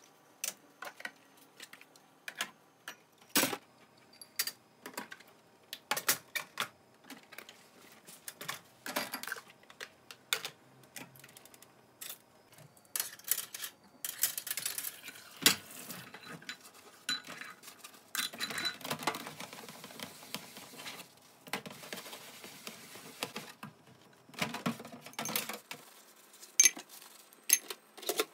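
Washed glasses, cups and plates being set down on a metal dish shelf and drying rack: irregular clinks and knocks of glass and ceramic on metal, with a few longer stretches of clattering.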